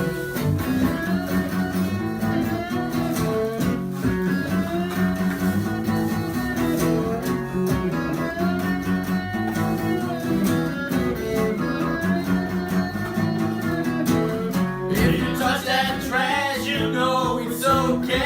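Band music led by guitar, playing instrumentally, with a voice starting to sing about fifteen seconds in.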